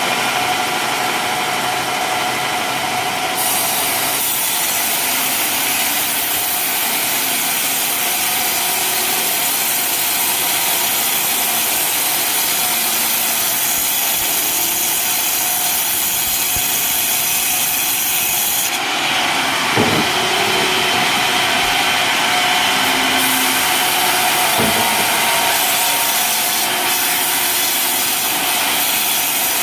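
Sawmill blade cutting lengthwise through an old coconut palm trunk: a steady, loud sawing hiss over the running machine. The cut grows harsher about four seconds in, eases briefly about two-thirds through, and a couple of short knocks come near the end.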